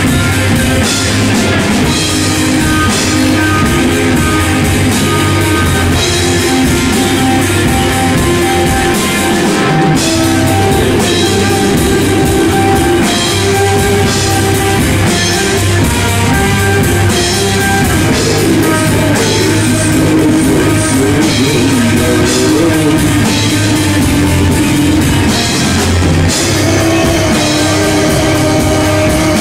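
Stoner rock band playing live, loud and dense: distorted electric guitars, bass and a pounding drum kit.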